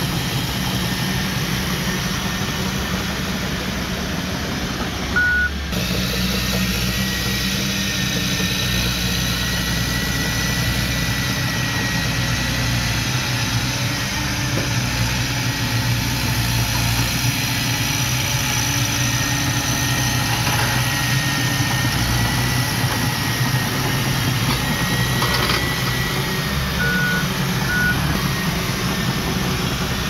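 Komatsu D31P bulldozer's diesel engine running steadily as it pushes dirt, with a few short beeps, once about five seconds in and twice near the end.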